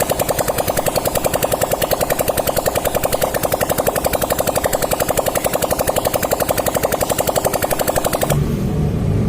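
Rapid, even mechanical rattling of about ten hard clicks a second. It cuts off abruptly near the end and gives way to a lower rumble.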